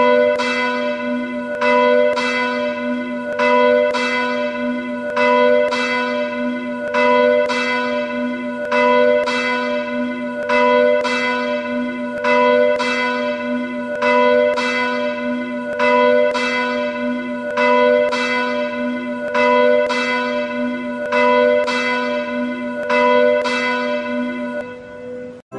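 A single church bell tolling steadily, about fifteen strikes at the same pitch, one roughly every 1.8 seconds, each ringing on into the next over a lingering low hum. It cuts off abruptly just before the end.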